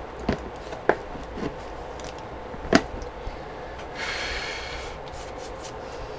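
Things being picked up and set down on a cluttered craft table: four sharp clicks and taps, then a short rustle about four seconds in.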